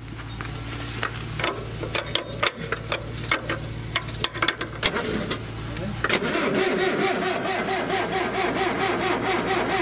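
A skid steer's engine cranking over on its starter in a fast, steady rhythm without catching, from about six seconds in, as it is jump-started after its battery went dead. Before that, a run of irregular clicks and knocks, with a steady low engine hum underneath.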